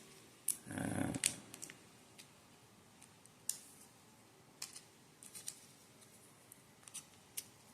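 Faint scattered clicks and taps of a coin-cell battery and the plastic key fob housing being handled as the battery is pressed into its slot, with a short louder rustle about a second in.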